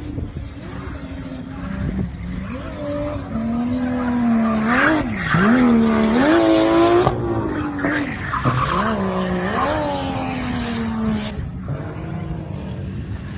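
A drift car's engine revving up and down over and over as the car slides sideways, with tyre screech. It is loudest about four to seven seconds in as the car passes closest, then fades as it pulls away.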